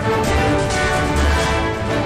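Orchestral television station theme music playing, full and steady, with strong bass notes under sustained melody lines.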